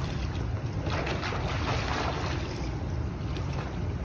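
Steady rush of wind on the microphone over water sloshing and lapping in a swimming pool as a child swims.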